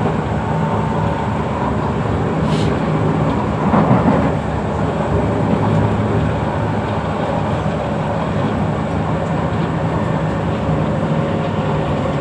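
Kawasaki C151 metro train running on the track, heard inside the carriage: a steady rumble of wheels on rails with a low hum from the traction equipment. There is a brief louder rattle about four seconds in.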